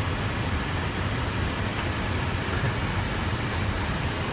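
Steady cockpit noise inside an Airbus A319 airliner on approach: an even rush of airflow and ventilation, heaviest in the low end, with no changes.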